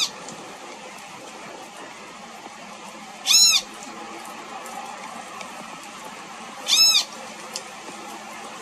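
Great kiskadee giving two loud, nasal single-note calls about three and a half seconds apart, each briefly rising and falling in pitch.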